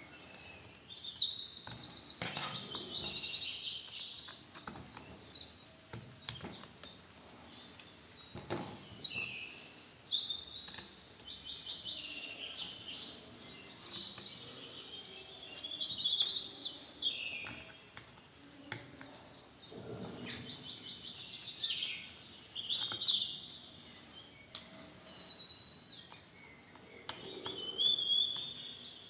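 Birds chirping and singing in repeated bouts of quick, high trilled phrases, with a few short clicks and knocks in between.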